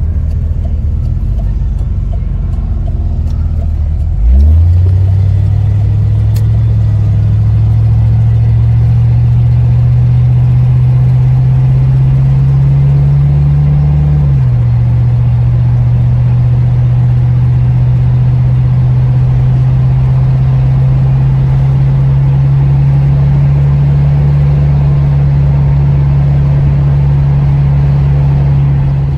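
A classic Ford Mustang's engine heard from inside the cabin: it idles low, then pulls away hard about four seconds in. It climbs steadily in pitch, shifts up about fourteen seconds in, and then cruises at a steady pitch.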